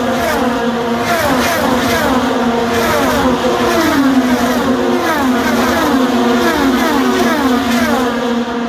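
A stream of IndyCars' 2.2-litre twin-turbo V6 engines at racing speed, passing close one after another, each engine note dropping in pitch as the car goes by.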